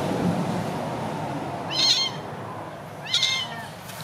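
Young kitten meowing twice in short, high cries about a second and a half apart, over a steady low hum. The kitten is wet, and its crying is put down to the cold.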